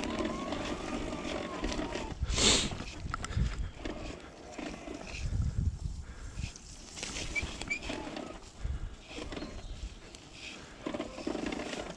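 E-bike ridden over a rough forest trail: a growling drive noise with rumbling and rattling from the bumps. The loudest jolt comes about two and a half seconds in.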